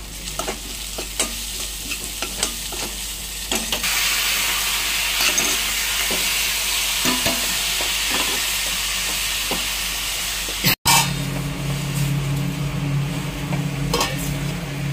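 Chopped onions and spices sizzling in oil in a steel kadhai while a slotted steel spoon stirs and scrapes the pan, with scattered clicks of metal on metal; the sizzle grows louder about four seconds in. After a brief break about eleven seconds in, a steady low hum joins the sizzle.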